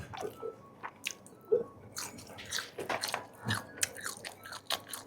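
A person chewing and biting food close to the microphone: a run of small, irregularly spaced crunches and mouth clicks.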